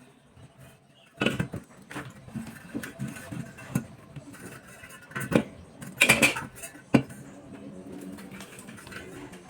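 Irregular metallic clanks and knocks, as of tools or metal parts being picked up and set down, the loudest cluster about six seconds in.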